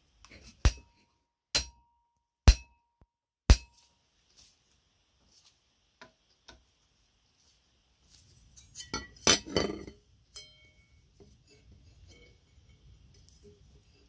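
Metal parts of a cast-iron meat slicer being fitted together: four sharp metallic knocks about a second apart, two of them with a brief ring, then a quick cluster of clinks and rattles about halfway through.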